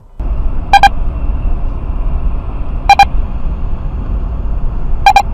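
Steady low road and engine rumble inside a moving car, starting abruptly just after the start, with short electronic beeps about two seconds apart: three in all, the last one doubled.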